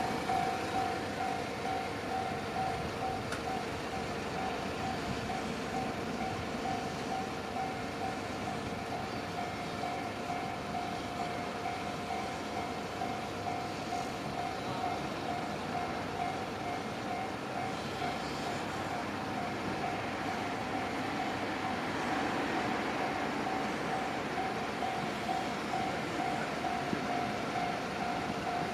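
Japanese railway level-crossing alarm ringing with a rapid, even run of electronic dings. Train running noise swells up behind it about two-thirds of the way through.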